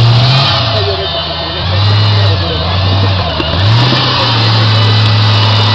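Off-road buggy's engine working hard as it climbs a steep rocky slope. The revs drop and pick up again twice, then hold steady.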